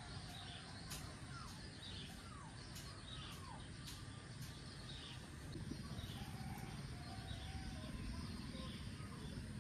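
Birds calling faintly: short downward-sliding chirps, roughly one a second, over a steady outdoor hiss.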